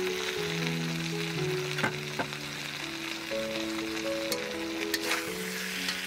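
Background music with a slow melody of held notes, over a steady crackling sizzle broken by a few sharp pops.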